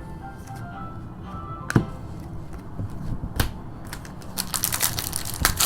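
Foil trading-card pack being handled and torn open: a few sharp crinkles, then dense crackling of the wrapper near the end. Faint background music underneath.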